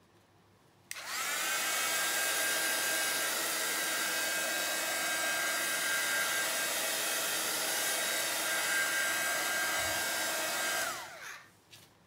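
Electric hot-air blower switched on about a second in, its motor whine rising as it spins up, then running steadily with a rush of air while pointed at the wet acrylic pour. It is switched off near the end, the whine falling as the motor winds down.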